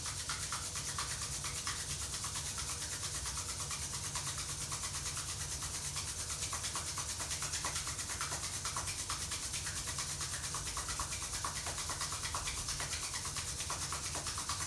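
Bare palms rubbed briskly together, a fast, even back-and-forth swish of skin on skin.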